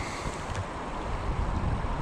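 River water rushing and rippling close by, with gusts of wind buffeting the microphone in uneven low rumbles.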